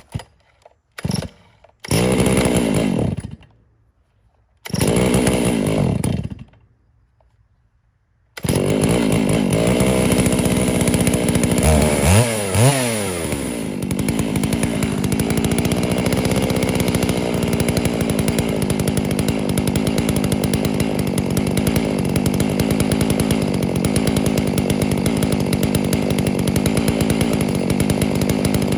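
Two-stroke chainsaw fires briefly twice, each time dying out with a falling pitch. About eight seconds in it catches and runs steadily, with a quick rev and drop in pitch around twelve seconds.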